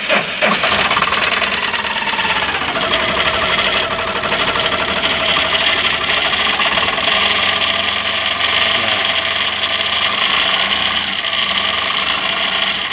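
Suzuki Super Carry engine running just after starting, with a loud metal-to-metal noise that the owner puts down to a failing water pump. A whine in it drops and settles about two to three seconds in.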